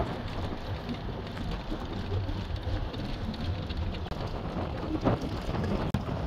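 Moving intercity bus heard from a window seat: a steady low rumble of engine and road with wind rushing over the microphone, and a single short louder knock about five seconds in.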